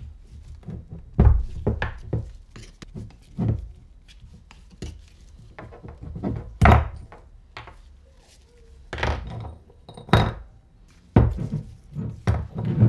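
Metal hand tools and brake pads knocking and clinking against a Nissin brake caliper as the pads are taken out: about a dozen irregular sharp knocks, a few of them much louder than the rest.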